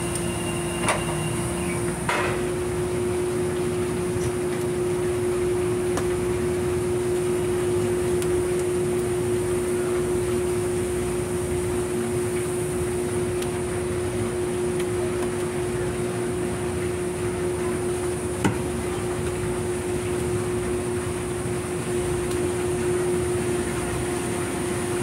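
Steady drone of running machinery with a constant pitched hum, broken by a few sharp knocks, about one and two seconds in and once more past the middle.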